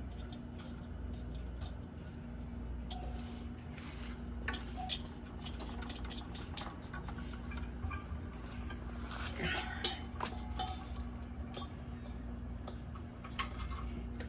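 Scattered small metallic clicks and clinks of tools and fittings being handled, with two sharp ticks about halfway through the loudest, over a faint steady hum.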